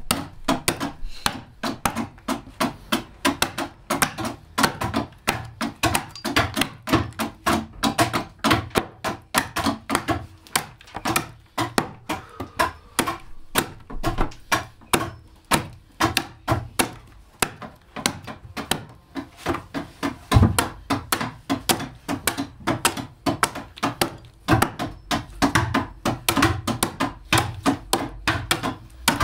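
Quick, steady strokes of a hand carving tool into mulberry wood, several sharp wooden knocks a second, as the bowl (tekne) of a bağlama is hollowed out.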